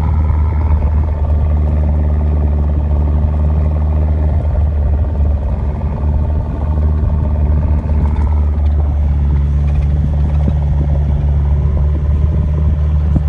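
Mazda BT-50 pickup's engine running steadily while driving off road, a low drone whose pitch shifts slightly near the start and again about eight seconds in.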